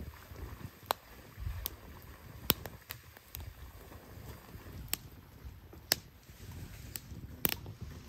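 Split firewood burning in a metal fire bowl, crackling with about a dozen sharp, irregular pops over a low rumble.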